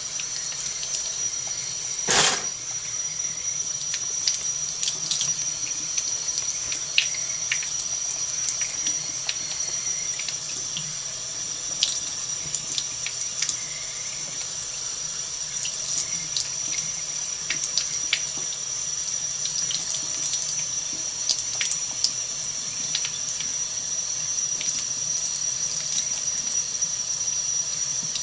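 Thin stream of water running from a kitchen faucet and splashing onto a metal sink grate, with a steady high whine. Small scattered clicks and splashes come from a cat lapping at the stream, and there is one loud knock about two seconds in.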